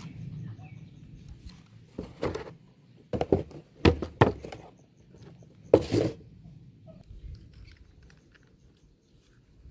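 Sharp clacks from an airsoft Glock 18C replica, coming in quick pairs four times over a few seconds.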